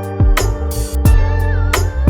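Background music with a steady drum beat, sustained bass and an electric guitar melody with sliding notes.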